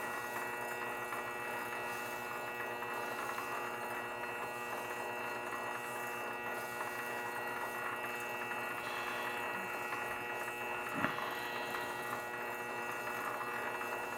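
Grizzly G0768 lathe running slowly at about 63 RPM: a steady hum with several fixed whining tones from its drive. A single short click comes about eleven seconds in.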